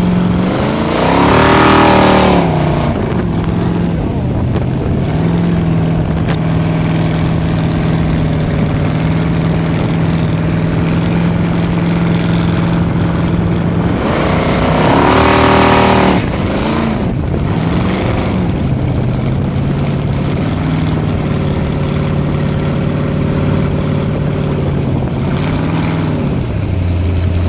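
1969 Sidewinder jet boat's V8 engine running hard at speed over a rush of wind and water spray. Twice, about a second in and again about fourteen seconds in, the revs climb and fall back.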